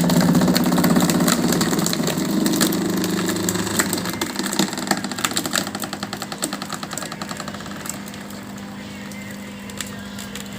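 Drum wood chipper running with wood fed into it, a steady low hum under fast, dense clattering; the sound is loudest at first and dies down over several seconds as the load eases.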